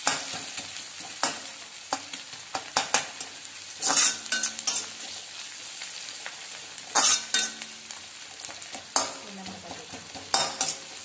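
Sliced onions sizzling in hot oil in a metal kadai over a high gas flame, with a steel spatula scraping and knocking against the pan as they are stirred. The scrapes come at irregular intervals, loudest about four and seven seconds in.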